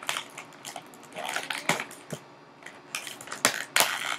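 Small plastic toy pieces and packaging being handled: irregular clicks, taps and crackles as they are picked up and set down.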